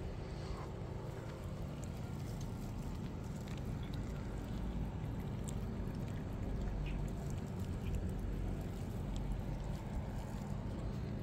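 Cats eating dry kibble, with faint scattered crunching clicks over a steady low rumble.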